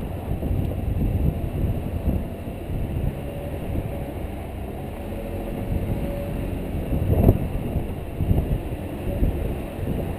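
Heavy wind buffeting on the microphone of a camera mounted outside a 2013 Jeep Wrangler JK. Underneath is the low rumble of the Jeep's engine and its tyres on soft sand as it drives. There is a louder surge about seven seconds in.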